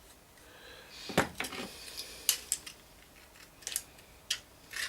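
A handful of scattered, sharp metallic clicks and light clatter, the loudest about a second in, from handling the speed-selector knob and mechanism of a BSR record-player deck.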